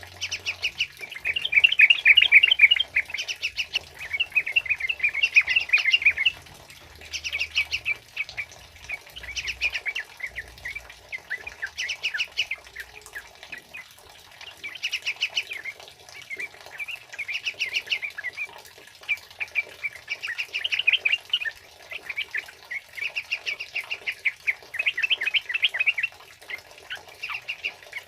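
Yellow-vented bulbuls (trucukan) singing in repeated bursts of fast, bubbling chattering song every couple of seconds, over a faint steady hiss of heavy rain.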